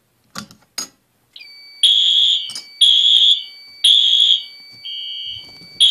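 Two clicks, then the SK4 home fire alarm system goes into alarm about a second and a half in. Its horn sounds loud and high-pitched in the temporal-three evacuation pattern: three half-second blasts a second apart, a pause, then the pattern starting again. A steady high tone runs underneath.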